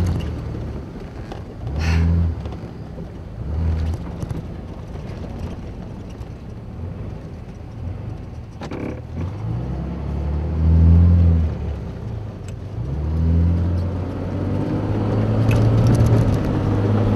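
Vehicle engine heard from inside the cabin, revving up in several short bursts with rising pitch, with a few knocks as the vehicle bumps over rough ground.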